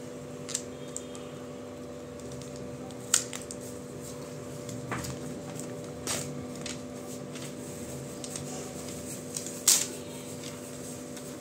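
Handling of a new phone's paper and plastic packaging: short crinkles, rustles and sharp clicks as the protective sleeve is peeled off the phone, the loudest near the end, over a steady low hum.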